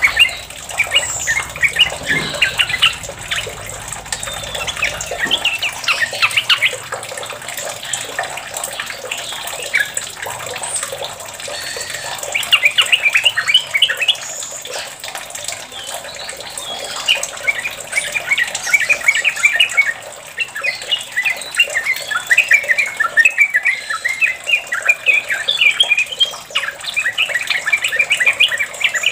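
Yellow-vented bulbul singing in long runs of rapid chattering notes, the continuous 'ropel' song, with several dense bursts close together.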